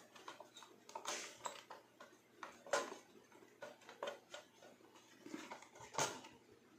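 Irregular light metallic clicks and knocks as the sheet-metal casing and parts of a disassembled bread toaster are handled, the sharpest knocks about three and six seconds in.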